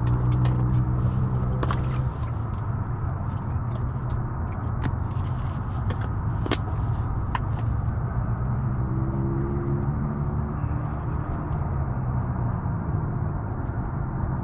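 A steady low motor hum, engine-like, with a few light clicks and ticks from small tackle being handled.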